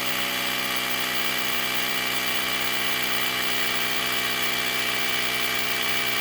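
Portable electric air compressor (tire inflator) running steadily, an even hum with a thin high whine, not that noisy, as it pumps air into a flat four-wheeler tire.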